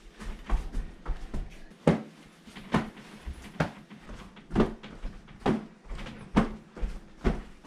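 A steady rhythm of sharp percussive knocks, about one every second, with fainter taps between them.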